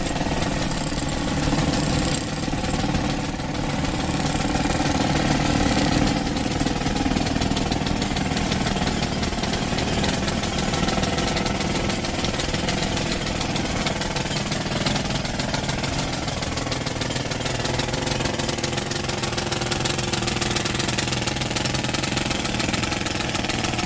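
An engine running steadily at an even pitch, over constant street and work-site noise.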